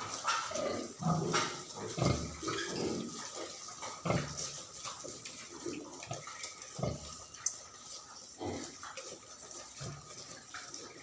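Pigs grunting at irregular intervals, a few short grunts every second or two.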